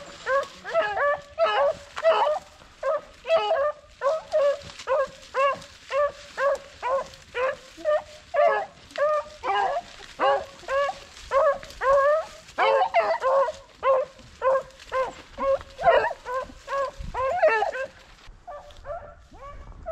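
Rabbit-hunting dogs baying in a quick, steady rhythm of short calls, about two to three a second, as they run a rabbit's trail. The calls stop near the end.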